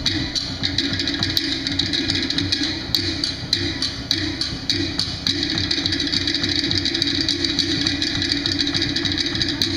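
Polynesian dance music with quick, steady percussion of wooden knocks and drums.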